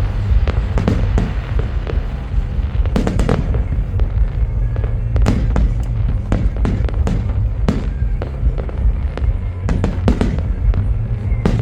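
Fireworks going off: a rapid, irregular series of sharp bangs and crackles, some with a short echo, over a steady low rumble.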